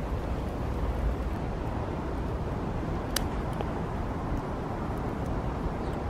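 Wood fire burning fiercely in a BBQ pit: a steady low rush of flame with a sharp crackle about three seconds in and a few faint ticks.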